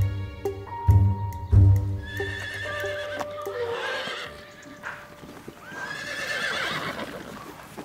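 Background music with a low pulsing beat fading out after the first few seconds, overlapped by horses whinnying: one whinny about two seconds in and a longer one near the end.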